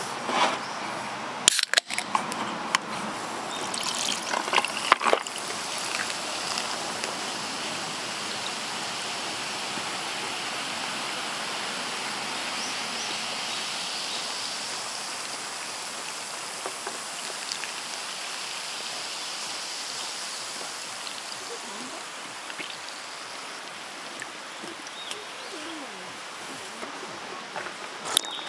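Stream water flowing steadily, with a few sharp knocks or clicks in the first few seconds.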